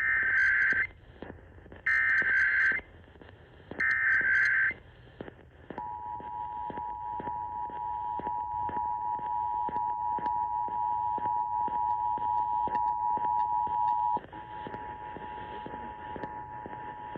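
Emergency Alert System tones heard over AM radio. First come three short bursts of SAME header data tones, each about a second long and two seconds apart. Then, about six seconds in, the steady two-tone EAS attention signal starts; it drops in level about fourteen seconds in and carries on.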